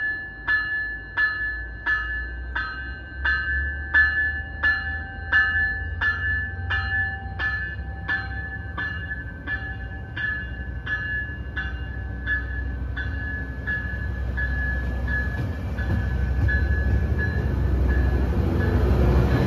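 Coaster commuter train's bell ringing in an even beat, about one stroke every 0.6 s, as the bilevel coaches roll past. The ringing fades while the low rumble of the moving train grows louder toward the end.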